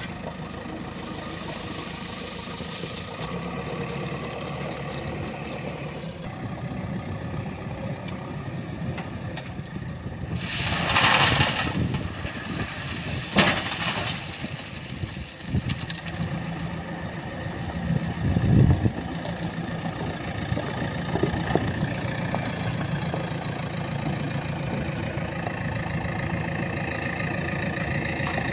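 JCB 3DX backhoe loader's diesel engine running steadily during loading work. Midway there is a brief rushing noise, then a sharp knock, and later a short low surge in the engine.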